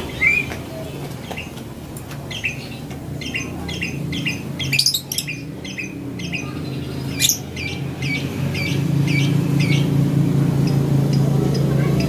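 Lovebird chirping: a rapid string of short, sharp chirps, about two a second, with two louder shrill squawks around the middle. A low steady hum grows underneath in the second half.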